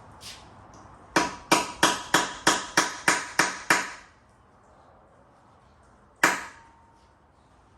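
Hammer blows on metal: a run of eight sharp strikes at about three a second, then a single strike about two seconds later, each leaving a short metallic ring.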